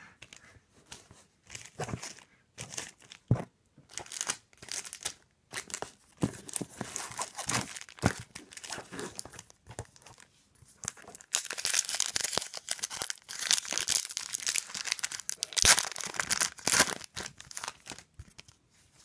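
Crinkling and tearing of a foil-wrapped trading card pack as it is handled and ripped open, in irregular bursts that grow dense and loudest in the second half.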